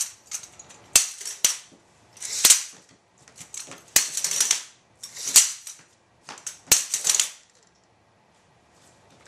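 Two Denny Mfg. EZ-1 metal light stands clacking and rattling as they are lifted and set down, their legs folding up and springing open: about six sharp clicks, each followed by a brief sliding rattle, stopping about seven seconds in.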